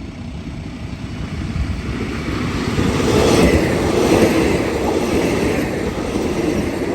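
Train passing by, its rumble and wheel noise swelling to a peak about three to four seconds in and then easing off.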